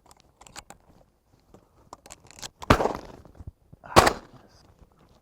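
Two shotgun shots fired at doves, the first a little under three seconds in and the second just over a second later, each a sharp report with a short fading tail.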